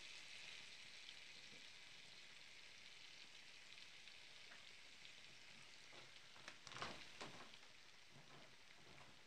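Butter sizzling as it melts and foams in a frying pan: a faint, steady crackling hiss, with a short cluster of louder crackles about seven seconds in.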